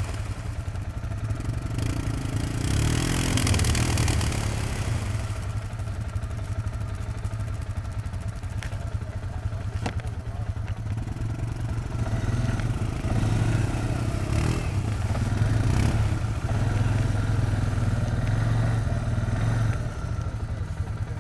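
Yamaha Grizzly ATV engine running with a deep, steady rumble, revving up in surges, with a rushing noise about three seconds in.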